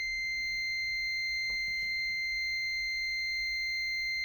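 Continuity beeper of a Smart Sensor ST833A digital multimeter sounding one steady, unbroken high beep, the sign that the test leads are touching and the meter detects continuity.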